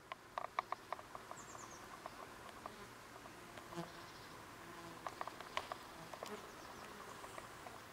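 Horse fly buzzing close by, which the filmer takes for a cleg (Haematopota pluvialis). Runs of sharp clicks come near the start and again about five to six seconds in, and these are the loudest sounds.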